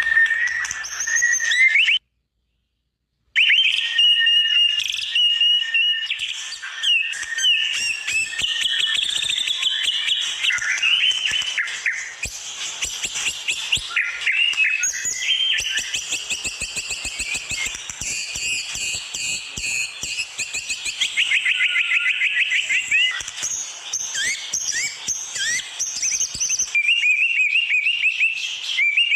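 White-rumped shama singing a long, varied song of rapid whistles, trills and chattering phrases, with a short break about two seconds in.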